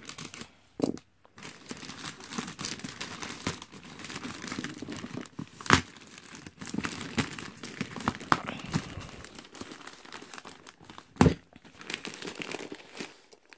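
Packaging crinkling and tearing as a cardboard box is cut open with scissors and its wrapping pulled apart, with many small clicks and two sharp knocks, about six seconds in and near the end.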